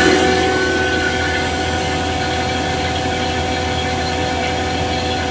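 Fieldpiece VP85 vacuum pump running steadily with a constant hum and whine, pulling a deep vacuum (about 740 microns) on an R22 air-conditioning system during evacuation. It drops a little in level about a second in, then holds steady.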